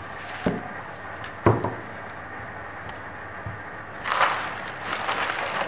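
Two dull thumps on the sewing worktable, about a second apart, then a second and a half of scratchy rustling and scraping of the paper pattern and cloth being handled.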